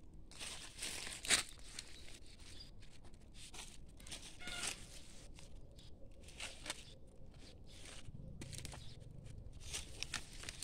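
Rustling and crackling of chili plant leaves and stems brushing close to the microphone in irregular bursts, with one sharp snap about a second in.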